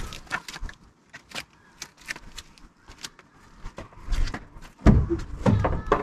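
Scattered light clicks and knocks, then a few heavier thumps about four and five seconds in: a car door being opened and someone climbing in. No engine is running yet.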